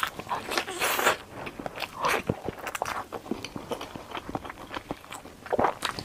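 Crunchy bites into a crispy, flaky fried meat pie, then chewing: a big crackling bite about a second in, another around two seconds, and a third near the end, with many small crisp crunches between.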